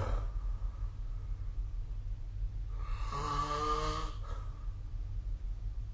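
A person snoring: one drawn-out, pitched snore of about a second and a half near the middle, with the tail of an earlier breath at the very start. A steady low hum runs underneath.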